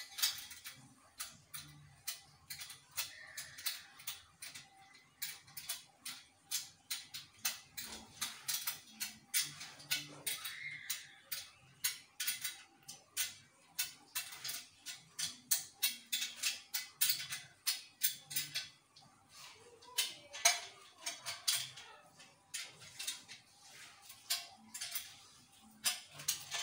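Metal parts of a satellite dish's feed-arm bracket clicking and clinking as they are fitted and tightened by hand. The clicks are sharp and come in a steady run, about two or three a second.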